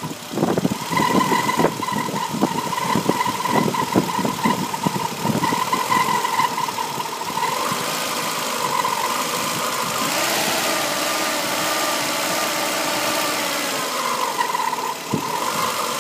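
VW Polo 1043cc four-cylinder engine in a Trabant 1.1 running at low revs, with a steady high whine and irregular knocking over the first half and again near the end. The note rises a little in the middle and then drops back. This is the strange low-rpm noise the owner cannot place: he is unsure whether it is a bearing, and it stays after a new water pump, a new timing belt and with the alternator belt removed.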